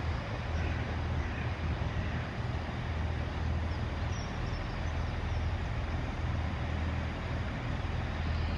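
Chiltern Railways Class 168 Turbostar diesel multiple unit standing at the platform, its underfloor diesel engines idling with a steady low hum.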